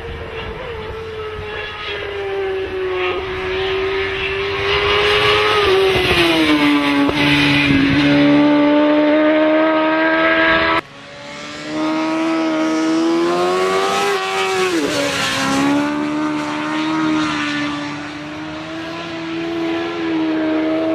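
Motorcycle engine running at high revs, its pitch dipping and climbing again as the bike slows and accelerates through bends. The sound breaks off abruptly about eleven seconds in and picks up again with the same engine note.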